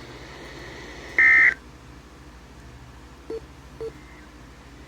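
NOAA Weather Radio giving one short, loud burst of Emergency Alert System SAME data, a fast electronic warble near 2 kHz lasting about a third of a second, about a second in: the end-of-message code that closes the severe thunderstorm warning. Otherwise low radio hiss, with two faint short blips near the end.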